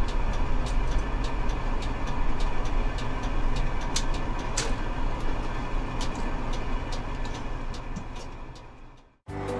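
Inside a large bus moving slowly: the engine runs low and steady under the cabin rumble, with the turn signal ticking about three times a second. The sound fades out near the end and gives way to background music.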